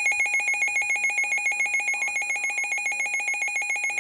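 Weather radio alert alarm sounding for a severe thunderstorm warning: a rapid electronic warbling beep that pulses about eight times a second and fades slightly.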